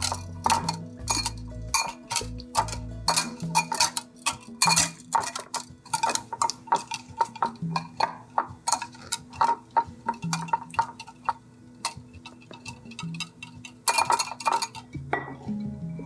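Wire whisk clinking and scraping against a glass bowl, stirring cold butter pieces into liquid brown butter: a quick, uneven run of ticks several times a second.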